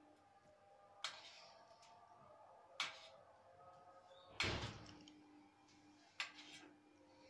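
Metal spoon clinking against a steel plate as meat broth is spooned over bread pieces: four short knocks about one and a half to two seconds apart, the third the loudest and heaviest.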